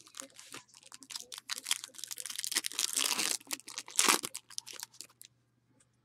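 Plastic wrapper on a box of football trading cards crinkling and tearing as it is ripped open, with a run of crackles that peaks in a louder rip about four seconds in and stops a little after five seconds.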